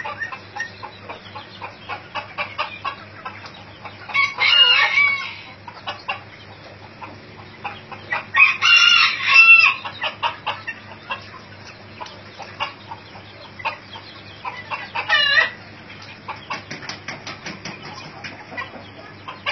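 Ornamental chickens: a rooster crows about four seconds in and again, longer, around the middle, with a short call near the three-quarter mark. Between the calls the flock clucks in short, quick, repeated notes.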